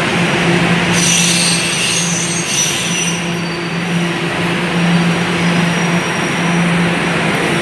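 TTC subway train running along the platform: steady wheel-on-rail rumble under a low hum that swells and fades in short pulses, with high-pitched wheel squeal from about a second in to about three seconds in.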